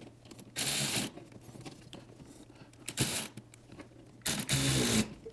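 Milwaukee cordless ratchet running in three short bursts, about half a second, a brief one and then a longer one, as it tightens a hose clamp on a heater hose.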